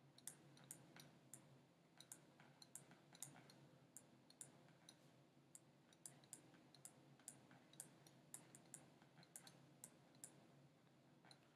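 Faint, irregular clicks and taps of a stylus tip on a tablet's glass screen during handwriting, a few a second.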